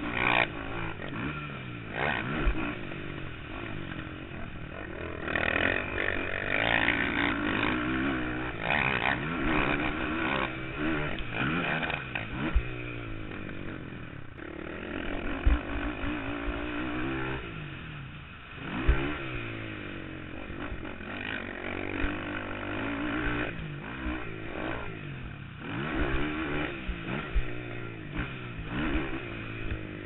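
Sport quad's engine heard from on board, revving up and falling back again and again as it is ridden hard around a dirt track, its pitch rising and dropping with throttle and gear changes. Knocks and clatter from the chassis over bumps, two sharp ones about halfway through.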